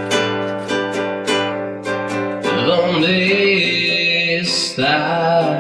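Acoustic guitar strummed in a steady rhythm, joined about halfway through by a man singing a long, wavering held note, then another short sung phrase near the end.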